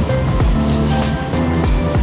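Background music with a steady drum beat and held notes.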